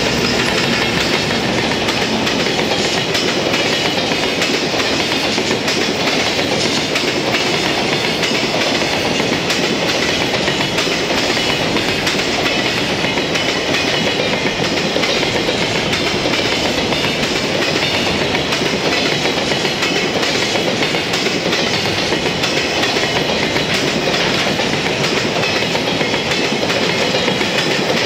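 Freight train passing close by: the JR Freight EF210 electric locomotive goes past at the start, then a long run of empty Koki container flatcars with a steady, loud rumble and clatter of wheels on the rails.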